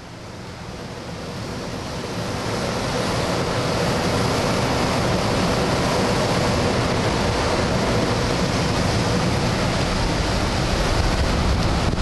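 Air rushing past a glider's cockpit and over the microphone, swelling from quiet to loud over the first few seconds, then holding steady.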